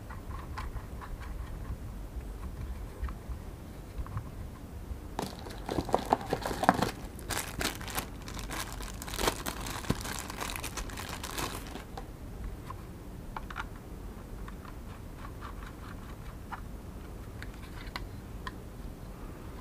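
Handling noise from a plastic drone remote controller and its clip-on panel antennas: scattered light clicks and rubbing, with a busier spell of crackly rustling and clicking in the middle.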